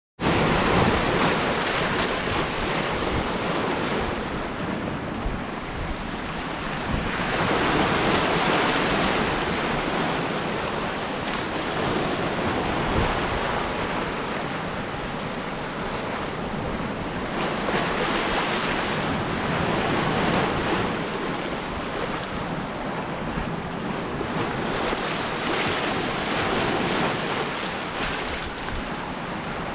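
Sea surf breaking and washing ashore in slow surges every several seconds, with wind buffeting the microphone.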